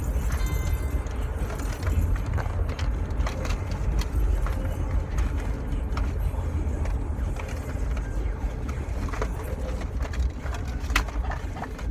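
Steady low rumble inside a car, with scattered light clicks and rustles of items being handled.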